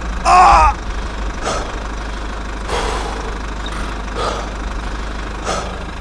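A small vehicle's motor running with a steady low hum, with a loud, short, high cry about half a second in and a few soft knocks later on.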